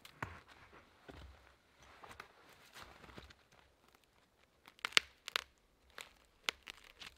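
Dry wood being pried and broken off an old stump by hand, likely fatwood: a run of cracking, splintering snaps with some crunching, the sharpest snaps coming about five to six and a half seconds in.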